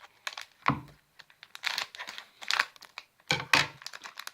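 Plastic toy packaging being handled and opened: irregular crinkling and rustling with a few sharp clicks, louder in several short bursts.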